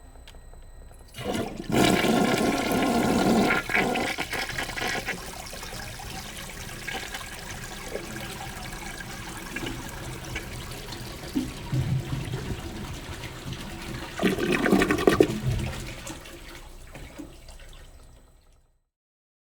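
A 1970 American Standard Cadet elongated toilet flushing. A sudden loud rush of water starts about a second in, settles to a quieter steady flow, and swells loud again about fourteen seconds in before fading away and stopping just before the end.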